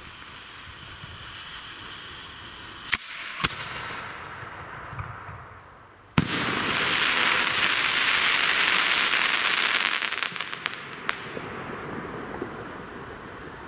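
A 4-inch titanium crackling chrysanthemum-to-palm aerial shell: a hissing fuse, then two sharp cracks about three seconds in as the shell lifts. About three seconds later the shell breaks with a loud sharp bang, followed by about four seconds of very loud, dense crackling that thins to scattered pops.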